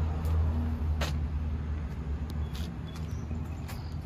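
A vehicle engine idling: a steady low rumble, with a few light clicks over it.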